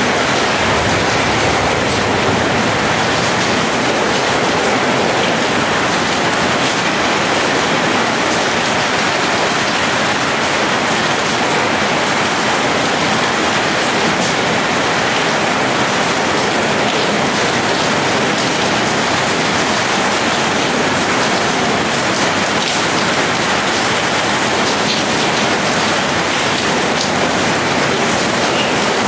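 Heavy monsoon-season rain falling steadily and running off the edge of a corrugated metal roof.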